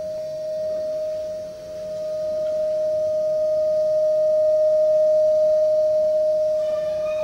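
A contemporary ensemble piece: one long held note, almost a pure tone, swelling slowly, with a brief dip about a second and a half in. A few higher held notes join it near the end.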